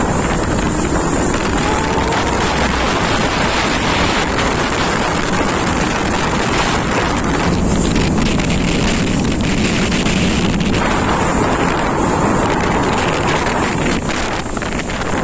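Strong wind buffeting the microphone of a moving camera, over steady road and engine noise from a truck and passing traffic.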